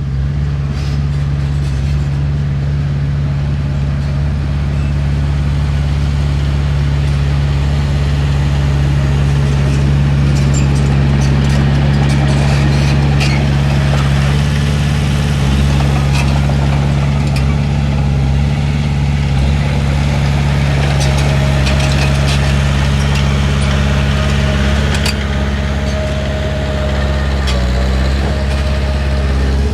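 Heavy earthmoving machine's diesel engine running steadily, with scattered clanks and knocks over the top.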